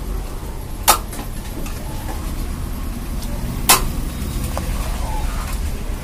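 A steel serving plate clinks sharply twice against a large metal biryani pot as it scoops out rice, about a second in and again a little past the middle, over a steady low rumble of street traffic.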